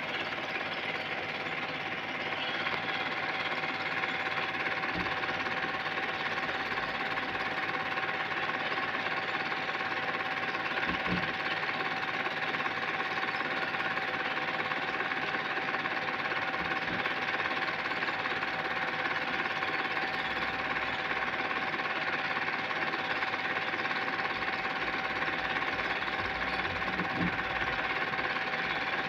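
Home-movie film projector running: a steady mechanical whirr with the rapid clatter of the film transport and a constant hum.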